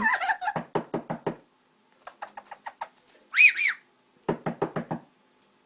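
Amazon parrot vocalizing: runs of rapid clicking pulses, with two short whistled notes that rise and fall about halfway through.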